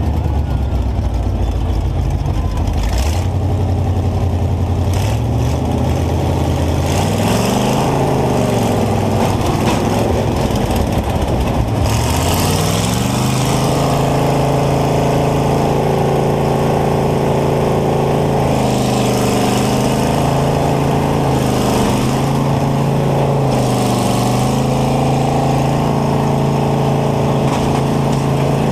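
Combine harvester's engine heard from inside its cab, revving up and dropping back several times in the first half, then running at a steady speed with a few short dips.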